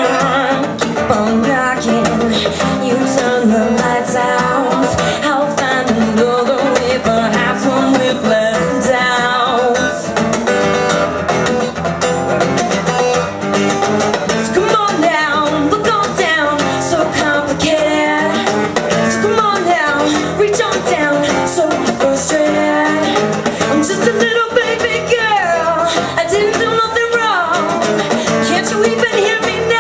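Live acoustic music: a woman singing over a strummed acoustic guitar, with conga hand drums keeping the beat.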